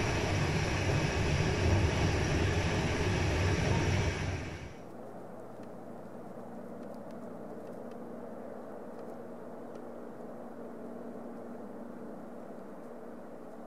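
A train running over the rails, a loud steady rumble that cuts off sharply about five seconds in. After that there is only a faint steady outdoor hum.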